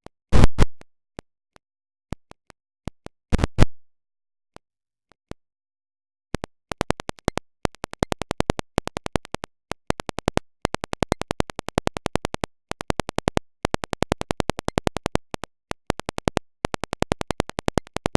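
Stutter-edited remix of an Android alarm sound, chopped into tiny clicking slices. Two short loud bursts come near the start and about three seconds later, amid scattered clicks. From about six seconds in, a dense, rhythmic run of rapid clicks plays, several to the second, like record scratching.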